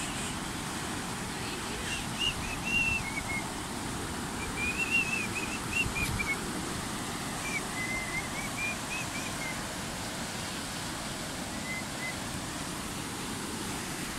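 Steady rushing noise of a river in flood, its fast brown water running high over the banks. Over it a small bird sings several short phrases of quick, high chirping notes.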